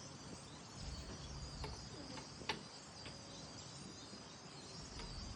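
Faint outdoor ambience with a few short bird chirps from a flock of songbirds perched in trees, over a steady high thin tone.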